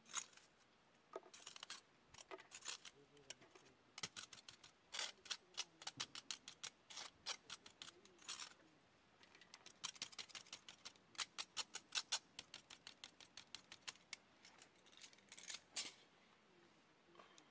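Long metal charcoal tongs clicking and scraping while gathering ash and charcoal bits off a fire-pit sheet, in quick runs of sharp clicks with short pauses between them.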